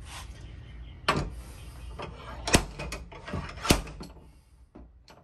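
Heavy slide-hammer dent puller on pins welded to a car door panel: the weight is slammed against the stop three times, about a second and a bit apart, with lighter clicks between, pulling out a creased dent in the sheet metal.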